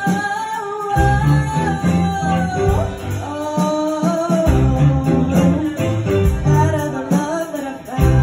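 Live rock band playing: drum kit with cymbals, electric guitars, bass guitar and keyboard, with a sung lead vocal.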